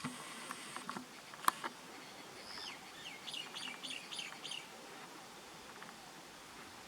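A bird calling a quick series of about eight short, high notes, each falling in pitch, over about two seconds. This is preceded by a few faint clicks and one sharp click about a second and a half in.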